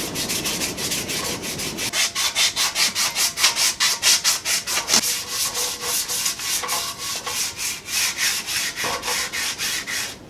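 Sandpaper rubbed back and forth by hand over the stripped metal frame of a mini bike, in quick, even strokes of about four to five a second, scuffing it ahead of paint.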